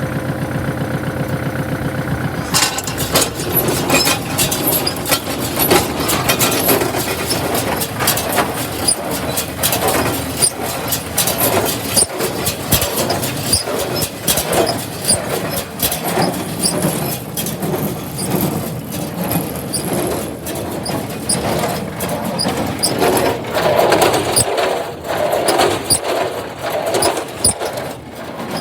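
Tractor engine running steadily. About two and a half seconds in, the 1980 John Deere 346 wire-tie square baler starts running, a dense irregular rattling and clanking of its mechanism over the engine.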